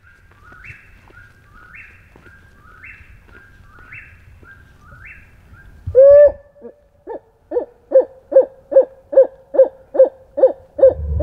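A bird repeats the same short, high song phrase about once a second. About six seconds in, a loud owl hoot breaks in, followed by a quick, even series of about ten hoots, a little over two a second.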